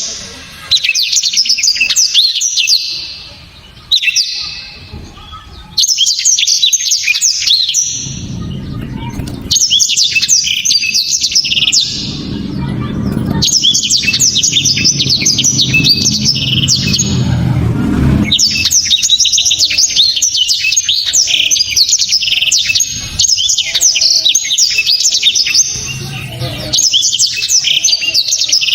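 Blackthroat (black-throated canary) singing loud, fast, high-pitched twittering phrases in bursts separated by short pauses. A low rumble runs underneath through the middle part.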